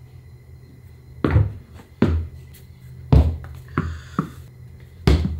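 Tennis balls thrown against a padded foam wedge mat and bouncing on a rubber gym floor: about six dull thuds, roughly a second apart.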